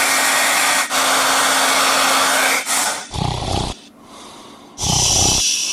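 A loud steady rushing noise with a low hum for nearly three seconds, followed by two short, loud snores about a second and a half apart.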